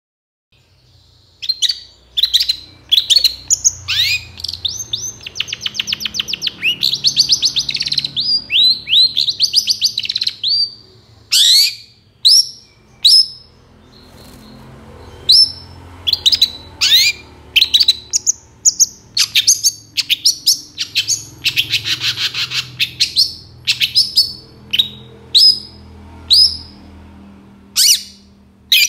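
Long-tailed shrike (cendet) singing in full energetic song, starting about a second in. It gives a rapid series of sharp down-slurred notes with fast rattling trills, and about three quarters in a longer rasping passage.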